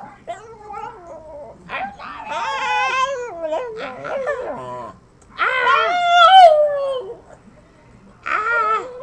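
Small pug-faced dog howling and whining in a series of drawn-out, wavering calls that rise and fall in pitch, like a dog trying to 'talk'; the loudest and longest call comes about five to seven seconds in.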